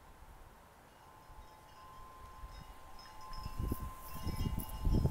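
Wind chimes ringing, several long steady tones that swell about two seconds in, while gusts of wind buffet the microphone over the last couple of seconds.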